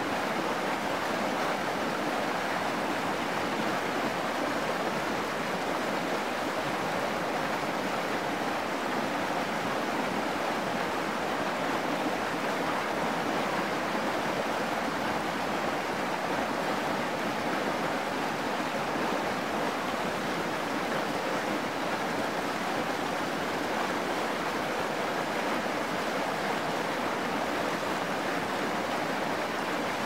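Shallow mountain stream rushing and babbling over rocks: a steady, even wash of flowing water.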